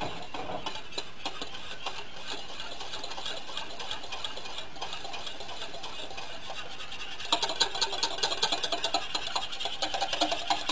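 Gravy being stirred in a stainless steel saucepan, the utensil clicking against the pan's metal sides. About seven seconds in, the stirring turns brisk, with rapid sharp clicks several times a second.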